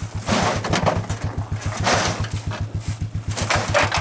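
Engine idling with an even pulsing, about eight pulses a second, with a few short rushes of noise over it.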